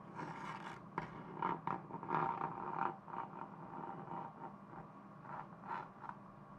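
Wooden ruler scraping and knocking on a desktop as a cat paws at it: a run of short scrapes and rubs, densest in the first three seconds, with a sharp knock about a second in.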